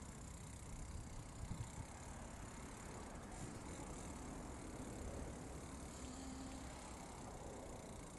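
Steady, low hum of car traffic on the road alongside.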